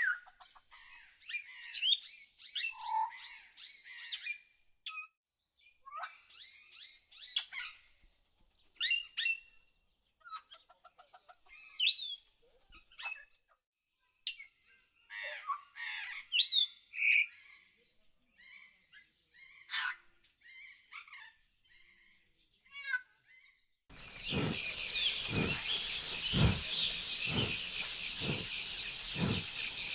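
Small birds chirping and tweeting in short, sharp calls and quick whistled glides, with brief silent gaps between them. About four-fifths of the way through, this cuts off abruptly and gives way to a steady hissing ambience with a regular low pulse a little under twice a second.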